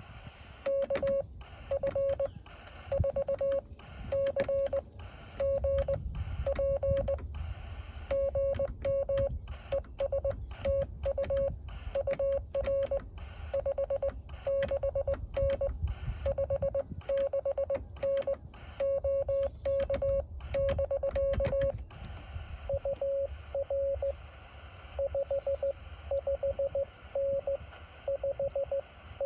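Morse code from a Yaesu FT-817 transceiver, a single tone of about 600 Hz keyed on and off. For the first 22 seconds it is the operator's own sending: the sidetone, with the key's paddle clicking on each element. After that, another station's faster Morse reply comes through the receiver without clicks.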